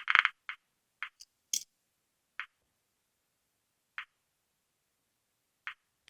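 Geiger counter clicking: a fast run of clicks stops just after the start, then single sharp clicks come at uneven gaps of half a second to nearly two seconds, the random ticking of a low count rate. A short dull thump comes at the very end.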